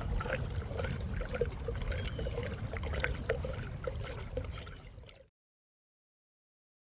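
Water splashing and lapping against a small boat's hull as it moves across a lake, over a steady low rumble. It fades out to silence about five seconds in.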